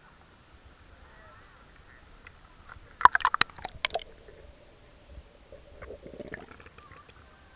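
Bath water sloshing and splashing close to the microphone, with a loud burst of splashes about three seconds in that lasts about a second, then softer sloshing.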